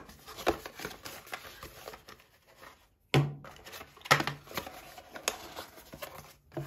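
Cardboard gift-box packaging being opened and handled: rustling and scraping with a series of light knocks and taps as box parts and the plastic earbud charging case are moved and set down on a wooden table.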